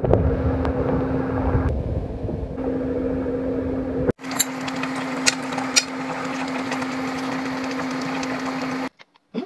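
Steady hum of a small electric motor, with a constant low tone over a wash of noise, as a wok of fish broth boils. It drops out for an instant about four seconds in, and a few light clicks follow.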